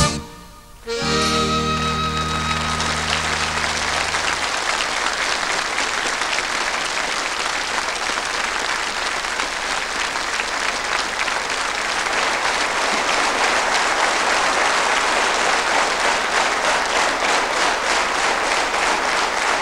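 A folk band ends its song on a held final chord, with the accordion prominent, for a few seconds. Audience applause starts with the chord and goes on steadily after it.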